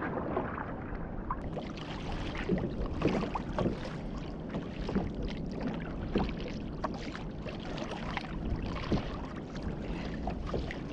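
Water lapping and splashing against a fishing kayak's hull as it moves through the sea, a steady wash with many small, irregular slaps.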